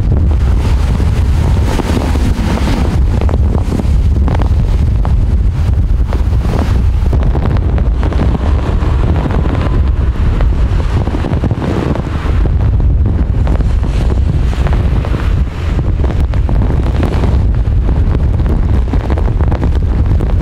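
Strong wind buffeting the camera microphone in a loud, unbroken rumble that swells and eases with the gusts.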